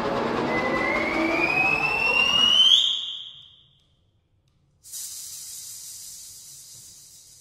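Avant-garde trio of accordion, electric guitar and percussion playing a loud, dense cluster with a high tone gliding upward; it cuts off about three seconds in and dies away. After a second or so of silence, a sudden high hiss starts and slowly fades.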